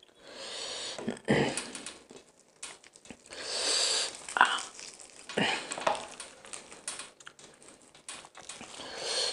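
Hands tearing apart a whole deep-fried chicken: the crisp fried skin crackles and the meat rips in a series of short bursts.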